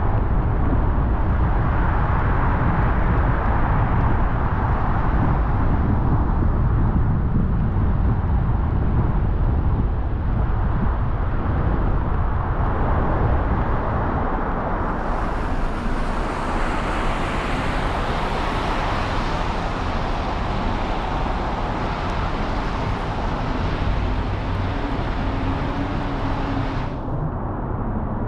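Car driving on wet city streets: steady tyre and road noise with a strong low rumble. About halfway through a higher hiss joins in, then cuts off suddenly near the end.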